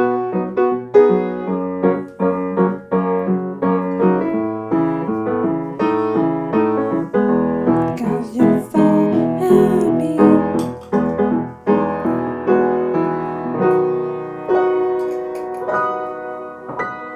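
An upright piano played by hand: a continuous run of struck chords and melody notes, each ringing and dying away, growing softer near the end.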